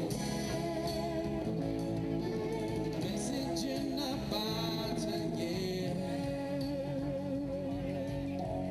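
Live band playing, with electric guitars and a voice singing held, wavering notes.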